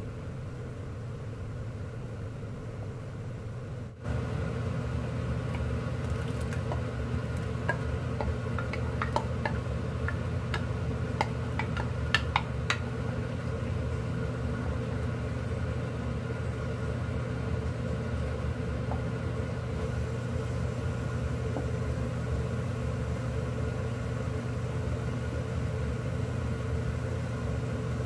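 Wooden spatula stirring thick rice porridge in a frying pan, with a run of light taps and clicks against the pan for several seconds about a quarter of the way in. Under it a steady low hum, which steps up in level a few seconds in.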